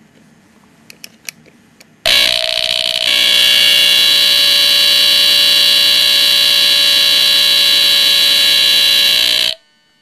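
A few light clicks from handling a bare smoke detector circuit board. About two seconds in, its alarm goes off: one loud, steady, high-pitched tone, unbroken for about seven seconds, then it cuts off suddenly.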